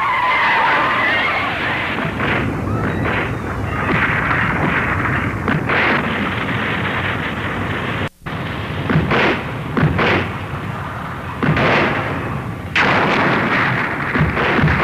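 Film sound effects of explosions and crashing concrete as a giant monster breaks up through an elevated highway: a dense, continuous din that cuts out abruptly about eight seconds in, then returns as a run of separate blasts.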